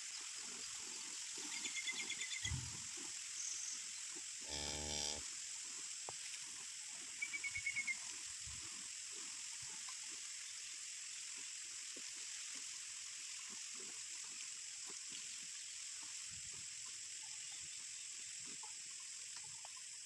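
A cow being milked by hand: a run of faint, quick squirts of milk into a bucket already partly full. About five seconds in there is one short animal call, and around two and eight seconds two brief bursts of rapid chirping.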